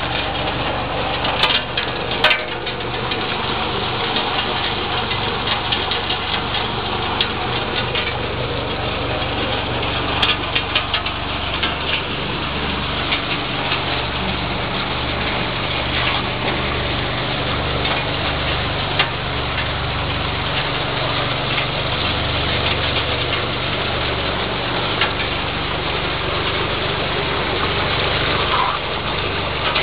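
Small-scale ore-processing machinery running steadily: a continuous motor hum with a wash of noise and scattered small ticks and rattles.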